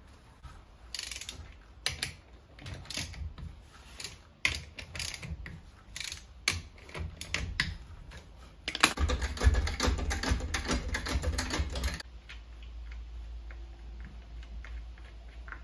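Ratchet wrench clicking as the wheel nuts are run onto a microcar's wheel, with scattered clicks and knocks of the nuts and tool. About nine seconds in comes a louder stretch of fast, continuous ratcheting lasting some three seconds, then only faint ticks.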